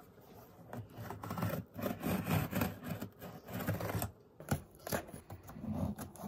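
Scissor blade drawn along the taped seam of a cardboard box, slitting the packing tape with a rough scraping rasp. There is a short pause about four seconds in, then a few shorter scrapes and clicks as the cut is finished from the other end.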